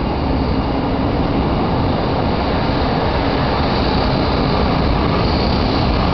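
A train passing close by on a railway bridge: a steady, loud rolling noise, with a faint high squeal coming in about four seconds in.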